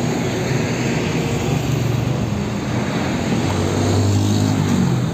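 Road traffic with a Hino tanker truck driving past: a steady diesel engine hum and tyre noise that swells about four seconds in as the truck comes alongside.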